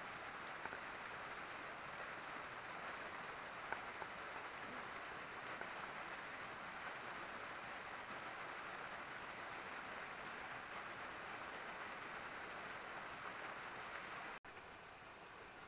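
Steady rushing of a small waterfall and stream. It cuts out for an instant near the end and resumes slightly quieter.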